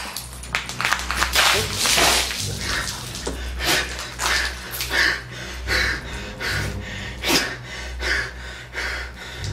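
A man breathing hard and gasping, quick noisy breaths roughly one to two a second, over a low steady hum.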